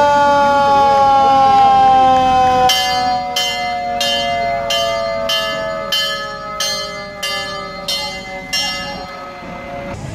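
A fire truck's mechanical siren winding down in one long, slowly falling wail. From about a quarter of the way in, a bell clangs about ten times, roughly every two-thirds of a second.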